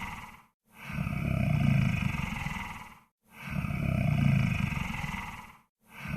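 Monster snore sound effect: deep, rasping snoring breaths repeating about every two and a half seconds. Each swells quickly, then fades, with a short silent gap before the next.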